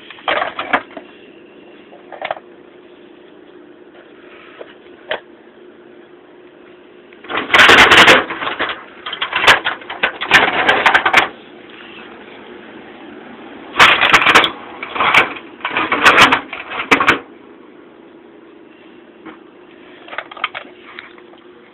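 Metal hand tools clattering and clinking in a toolbox tray as it is rummaged through. This comes in two bursts, about seven and fourteen seconds in.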